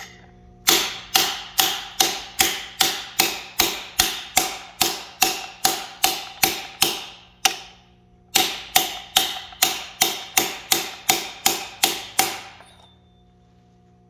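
Rapid metal-on-metal strikes of a hand-held driving tool tapping a big-block Chevy's crankshaft timing gear onto the crank snout, each blow with a short ring, about two or three a second. There are two runs, about seventeen blows and then about ten, with a pause of a second between them. The gear is not yet bottomed out.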